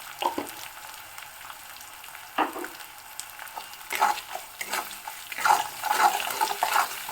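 Spice paste sizzling in mustard oil in a kadai while a spatula stirs and scrapes it, with irregular scraping strokes over a steady sizzle. The masala is being fried down (koshano) with ginger paste, ground spices and chilli powder.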